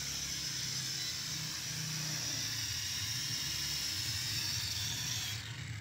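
Small drone's propellers and motors whining steadily in flight, a high whine over a low hum, cutting off suddenly near the end.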